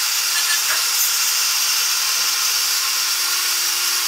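Small electric drill running at a steady speed with a constant motor whine and hiss, boring holes through a plastic pocket-knife scale.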